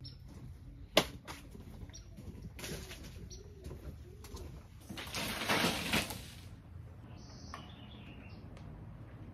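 Outdoor ambience with a dove cooing softly a few times, a sharp knock about a second in, and a louder rustling rush near the middle.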